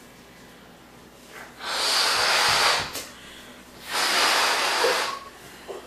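Someone blowing up a balloon: two long, hard puffs of breath into it, each lasting about a second.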